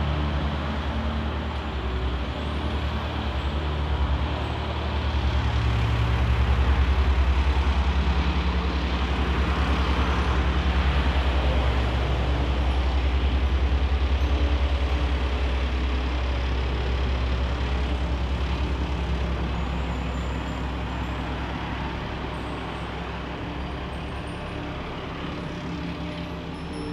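Street traffic noise dominated by the low, steady hum of a large vehicle's engine, growing louder a few seconds in and slowly fading over the second half.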